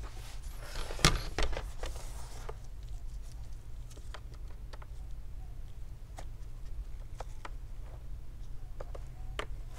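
Plastic prying tool working between a laptop screen's bezel and its top cover, separating the double-sided-adhesive bezel: a scraping rub in the first couple of seconds with a sharp click about a second in, then scattered small clicks and taps, over a steady low hum.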